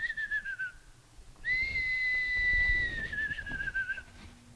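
Elk bugle: a high, clear whistle held steady and then falling away with a warble, heard twice. The tail of one call fades in the first second, then a full call of nearly three seconds follows.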